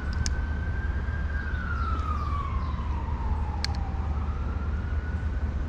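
Emergency-vehicle siren wailing: a single tone that holds high, falls slowly over about three seconds, then rises again, over a steady low rumble. A few short clicks sound near the start and midway.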